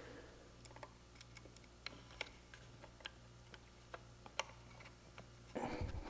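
Faint, irregular small metal clicks and ticks of a C-clip being worked into place on the door-handle cylinder rod.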